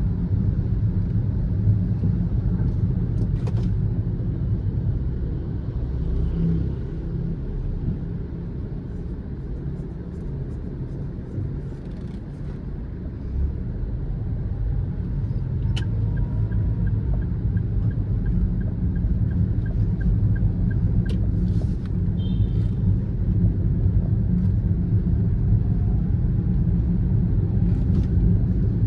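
Car driving, a steady low rumble of engine and road noise, with a short run of regular ticking about midway and a few faint clicks.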